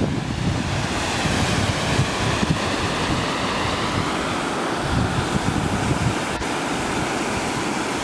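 Steady rush of Upper Cataract Falls, a waterfall pouring over rock ledges into a creek pool, with wind buffeting the microphone in irregular low gusts.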